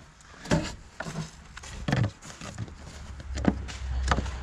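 Plastic clicks and knocks as a headlamp dust cover is handled and pushed back onto a VW Beetle headlamp housing, several separate snaps about a second apart. A low rumble builds from about three seconds in.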